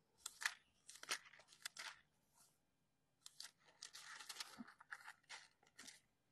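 Thin Bible pages being turned, rustling and crackling in short flurries close to the microphone, with a quiet gap of about a second midway.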